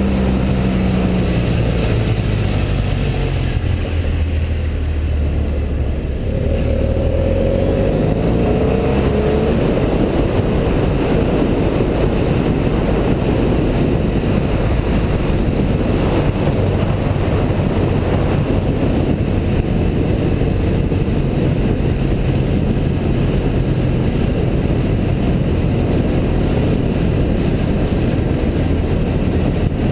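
BMW F650GS motorcycle engine running under way. Its pitch falls over the first few seconds, rises again as it accelerates about six to nine seconds in, then holds steady, under a constant rushing noise.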